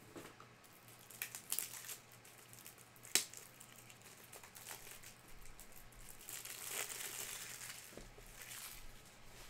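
Plastic packaging crinkling and rustling as trading cards are unwrapped and handled, with a single sharp click about three seconds in and a longer rustle near the end.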